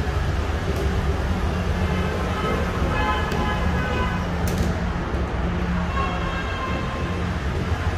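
Steady low rumble and hum of running machinery in a factory workshop, with faint distant voices now and then and a light click about four and a half seconds in.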